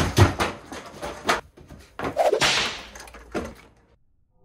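Arrma Kraton EXB RC monster truck crashing and tumbling, a quick run of hard knocks and bangs against wood. About two seconds in there is a brief rushing hiss, then one more bang before the sound stops short near the end.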